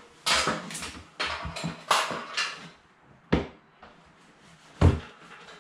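A string of knocks and clatters as someone steps up onto a hop-up work platform, with a heavier thump near the end.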